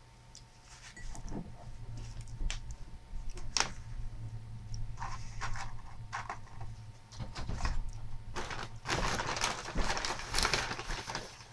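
Paper bags and fast-food packaging rustling and clicking as they are handled, in short bursts with a denser stretch of rustling near the end, over a steady low hum.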